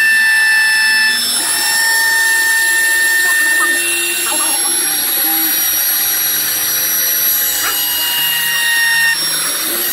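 Homemade CNC machine running: a steady mechanical whine made of several high tones that shift in pitch every few seconds as its motors change speed.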